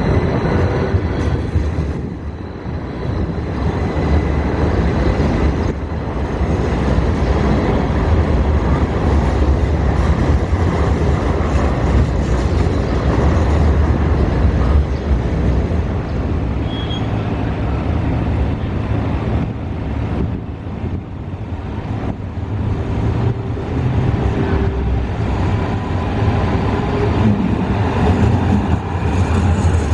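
Kinki Sharyo electric light rail vehicles running along street track, a steady low rumble of the cars and their wheels on the rails.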